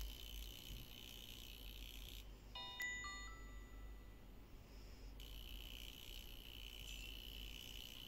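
A faint, steady high-pitched whine that drops out for about three seconds in the middle. In the gap, a short two-note electronic chime sounds.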